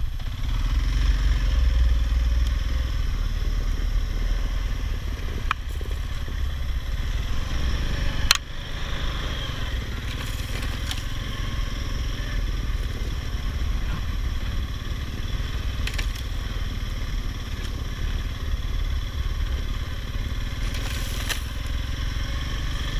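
ATV engine running with a steady low rumble, with a few scattered clicks and one sharp snap about eight seconds in.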